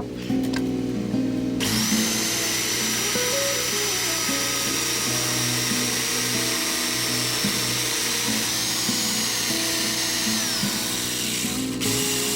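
Electric power tool running for about ten seconds with a steady high whine, the whine falling as it winds down near the end, over background music.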